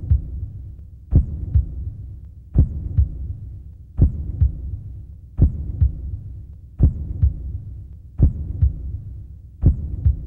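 Slow heartbeat sound effect: a strong low thump followed closely by a weaker one, repeating evenly about every one and a half seconds over a steady low hum.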